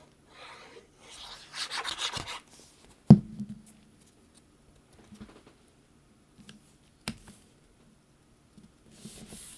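Paper and cardstock being handled and rubbed as a layer is pressed down onto a card, with a sharp tap about three seconds in and a lighter click later.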